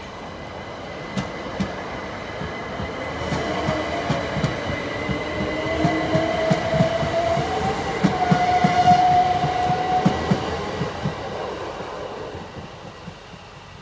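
Class 377 Electrostar electric multiple unit passing at speed, its wheels clattering in a quick rhythm over the rail joints and its traction motors whining in a rising, wavering pitch. It is loudest about nine seconds in, then fades as the train moves away. A steady high tone sounds faintly underneath.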